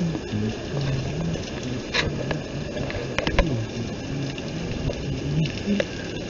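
Rain falling on wet pavement, with scattered sharp clicks and knocks from a handheld phone being moved about.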